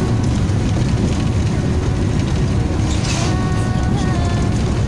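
Steady low road and engine rumble of a long-distance bus at highway speed, heard from inside the cabin, with faint music over it. There is a brief hiss about three seconds in.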